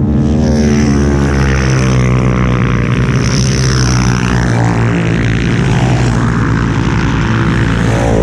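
Quad (ATV) engine running steadily and loud, close by, its pitch holding nearly even throughout.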